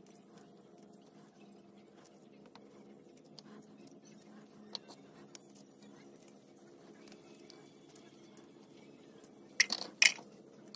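Garlic cloves being peeled with a small knife on a plastic cutting board: faint scattered ticks and scrapes over a low steady hum. Near the end come a few loud clinks as the peeled cloves are dropped into the glass bowl of a small electric food chopper.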